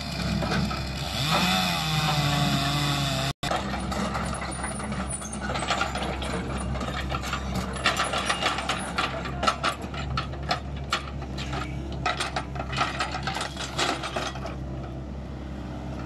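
Tracked excavator's diesel engine running, with rapid metallic clanking and knocking from about five seconds in until near the end, typical of steel track links as the machine travels and works. The sound drops out for an instant about three seconds in.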